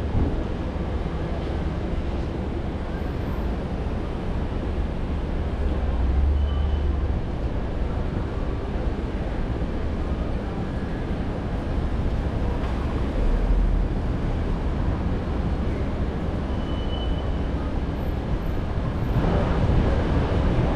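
A car driving on city streets: a steady low rumble of engine and tyre road noise, with a louder rush near the end.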